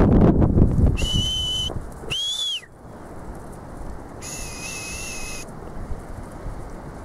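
Sheepdog handler's whistle commands to working border collies: a short steady blast about a second in, a quick note that rises and falls, then a longer, slightly wavering blast. Wind buffets the microphone in the first second.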